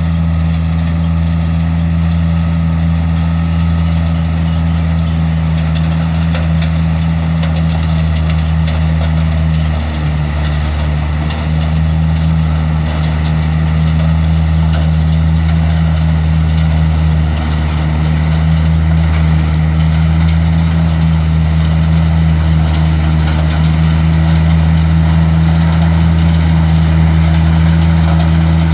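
Laverda 3700 combine harvester running steadily, a loud deep engine hum that holds even throughout.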